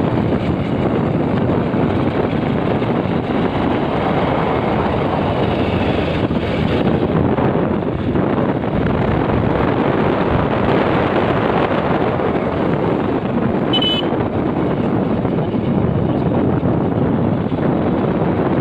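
Wind rushing over the microphone of a moving motorcycle, mixed with road noise, steady and loud. A short high-pitched chirp sounds once, about three-quarters of the way through.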